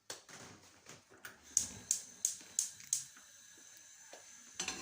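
Gas stove burner igniter clicking: five sharp, evenly spaced ticks, about three a second.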